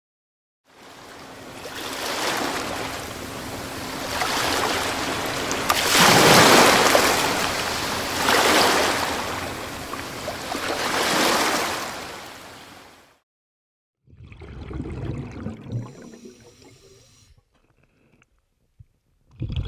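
Sea waves and spray rushing along the side of a boat under way, surging louder and softer every two to three seconds. It cuts off about two-thirds of the way through, and after a short gap a shorter, lower rushing sound follows.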